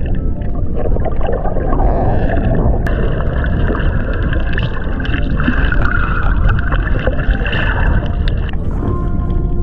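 Muffled underwater noise picked up by a camera held beneath the surface: a dense, steady rumble with gurgling and swirling water as the camera moves through the sea.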